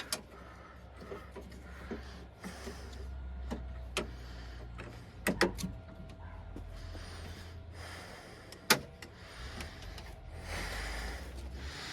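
Power window motor inside a GMC truck door running in two spells with a steady low hum, with a few sharp metallic clicks and knocks from parts being handled in the door.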